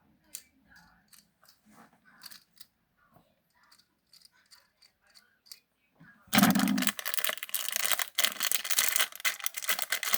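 Faint clicks and light rustling of packaging, then about six seconds in, loud crinkling and tearing of packaging right at the microphone.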